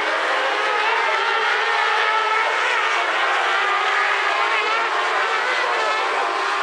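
A pack of 600-class autocross race buggies running together, several engines at high revs overlapping, their pitches rising and falling as the drivers work the throttle.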